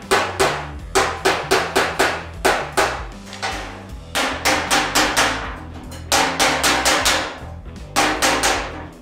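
A steel body hammer strikes the sheet-steel beaver panel of a car, shaping its edge in runs of sharp metallic blows, about two to three a second, with short pauses between runs. Background music with a steady bass line plays underneath.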